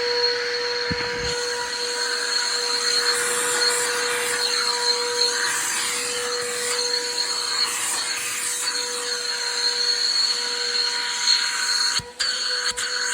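Stanley 4-gallon wet/dry shop vacuum running, a steady motor whine over a rush of air, with two brief dips near the end.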